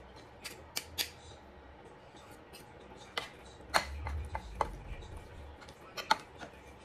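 A spoon clinking and scraping against a ceramic mixing bowl while working a thick mashed sweet potato dough, with irregular sharp clinks several times over.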